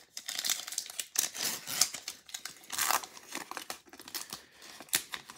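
Foil wrapper of a Topps baseball card pack being torn open and crinkled by hand, in irregular crackles and rips.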